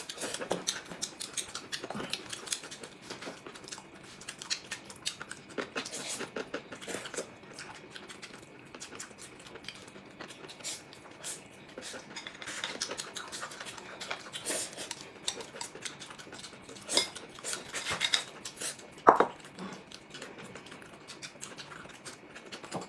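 People eating noodles: slurping and chewing, with wooden chopsticks tapping and clinking against porcelain bowls in many short scattered clicks, and one louder knock late on.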